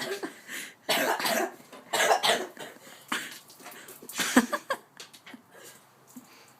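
A person coughing and gagging in about five harsh bursts, then going quieter near the end: the aftermath of vomiting after chugging a can of soda.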